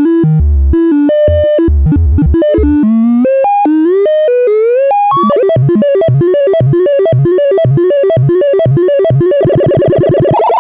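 Brüel & Kjær Type 1022 beat frequency oscillator playing a sequence of electronic tones, its pitch stepped by control voltage from a step sequencer. Notes hop quickly between pitches with a few upward glides. From about halfway a faster repeating low-high pattern takes over. Near the end it turns into a dense warbling tone that slowly rises.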